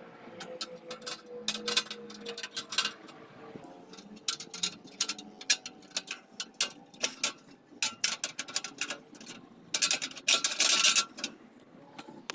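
Irregular sharp metal clicks and scrapes from a rebar bending tool being handled and worked, with a longer scraping rasp about ten seconds in.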